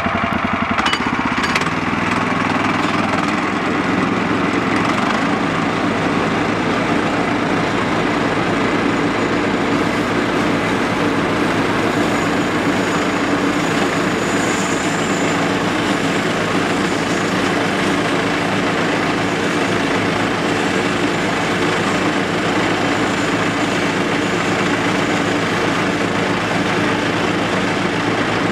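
Engine-driven bandsaw sawmill running steadily under load as its band blade cuts lengthwise through a log, with water lube spraying onto the blade.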